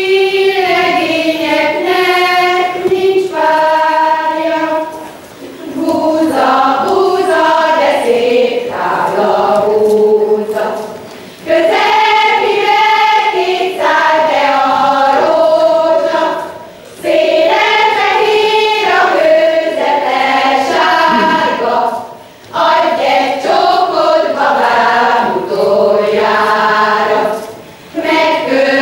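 A Hungarian women's folk song group singing a Sárköz karikázó, the song of a women's circle dance, in sung phrases of about five to six seconds broken by short pauses for breath.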